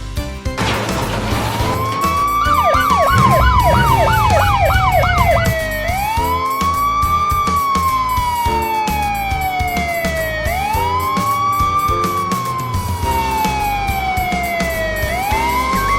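Fire truck siren wailing, each slow rise and long fall taking about four and a half seconds, with a fast yelping warble of about three cycles a second laid over it for roughly three seconds near the start. Background music plays underneath.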